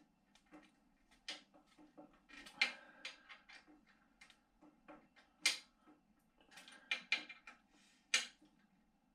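BMX handlebars being twisted by hand in the stem clamp: irregular light clicks, knocks and rubbing of metal parts, with two sharper clicks about five and a half and eight seconds in.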